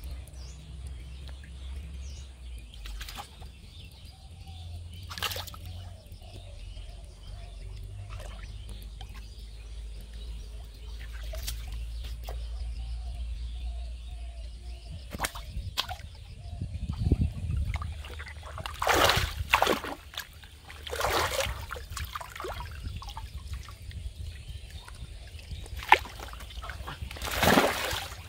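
Shallow pond water sloshing and splashing as a cast net is gathered and hauled up by hand, with a run of loud splashes past the middle and another near the end as a big fish thrashes in the lifted net.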